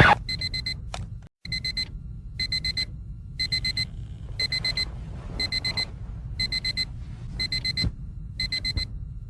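Digital alarm clock beeping: bursts of four quick high-pitched beeps, repeating about once a second, over a low rumble. A loud sudden hit sounds right at the start.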